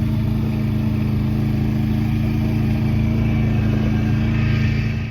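Four-wheeler (ATV) engine running at a steady speed while riding.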